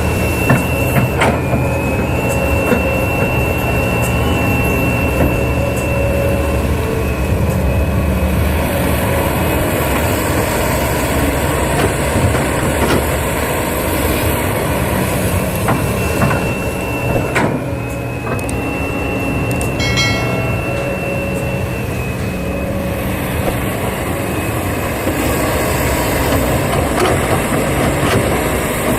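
Radio-controlled scale excavator working: a steady engine-like hum, with a high electric whine that starts about a second in, drops out, and comes back about 17 seconds in as the machine works, and scattered clicks and knocks throughout.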